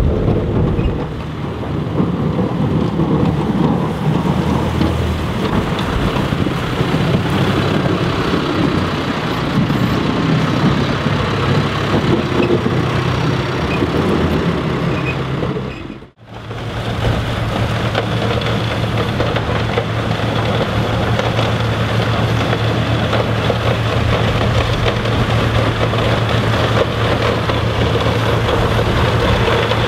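John Deere 6125R tractor running as it pushes snow with a V-plow. About halfway through, a cut to a wheel loader's Øveraasen snowblower running steadily as it blows snow into a truck, over the loader's engine.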